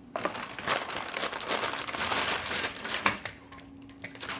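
Plastic packaging crinkling as it is handled and unwrapped, ending about three seconds in with a sharp click.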